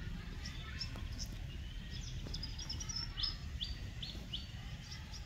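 Wild birds chirping, short high notes scattered through, with a run of four quick falling notes about three seconds in, over a steady low rumble.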